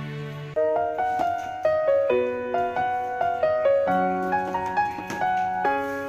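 Background piano music: a gentle melody of single notes over soft chords, starting about half a second in after a held chord.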